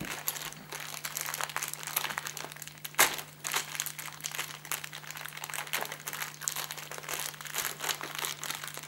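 Plastic packaging crinkling and crackling as it is handled and opened to take out the Beyblade parts, an irregular run of crackles with one louder crackle about three seconds in.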